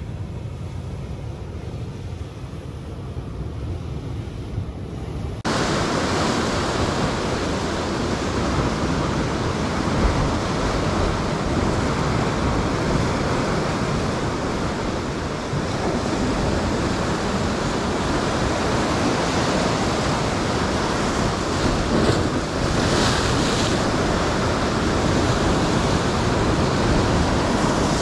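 Ocean surf surging and breaking against rocks, with wind buffeting the microphone. The first five seconds or so hold only a quieter, duller rush, which jumps to the full, louder wash of the surf; brighter splashes surge through about two-thirds of the way in.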